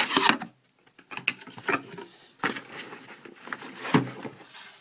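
Rustling, light knocks and scrapes from unpacking a camcorder box and handling its accessories: a rustle at the start, then a series of short knocks, the loudest about four seconds in.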